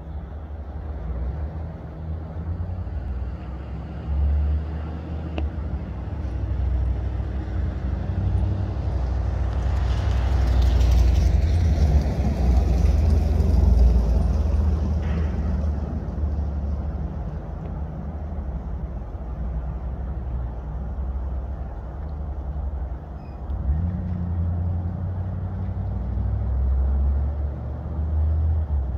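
Airplane flying overhead: a continuous low rumble that swells into a louder, hissier rush about ten to fourteen seconds in, then settles back to a low drone.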